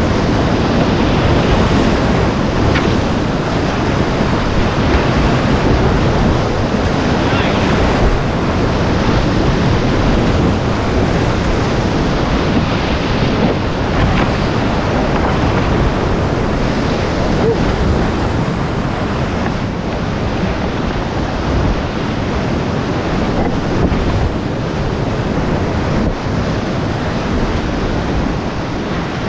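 Loud, steady rush of whitewater rapids pouring over boulders, heard from a kayak in the rapid, with water splashing over the bow and onto the camera.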